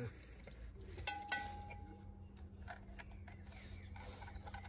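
A light metallic clink about a second in that rings on as a clear note for about a second, followed by a few soft knocks, over a steady low hum.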